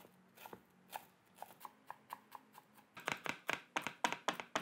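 Chef's knife chopping fresh basil leaves finely on a wooden cutting board: scattered taps at first, then a quick run of strokes, about six a second, from about three seconds in.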